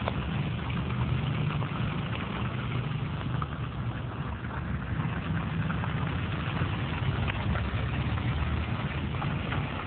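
Steady low rumble and hum under an even hiss, with no single sound standing out.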